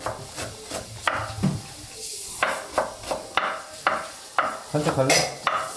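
Kitchen utensils clicking and knocking against dishes during food preparation, a run of short sharp knocks about two to three a second.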